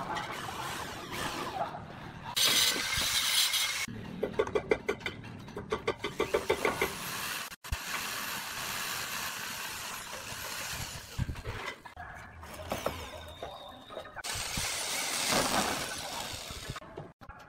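A handheld power drill runs in bursts of a second or two while concrete roof tiles are fixed to steel roof battens, with a stretch of rapid rattling and hard knocks of tile in between.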